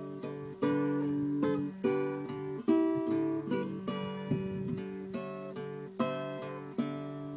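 Acoustic guitar music: chords strummed about once a second, each struck sharply and left to ring.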